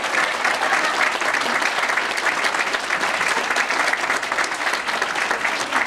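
Audience applauding, many hands clapping together at a steady pace.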